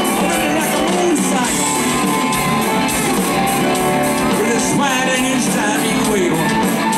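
A live country-rock band playing electric guitars, bass guitar and drums at a steady loudness.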